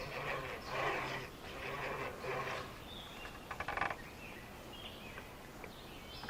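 Wild birds calling and chirping: a run of soft calls, then short chirps and a quick rattling call about three and a half seconds in.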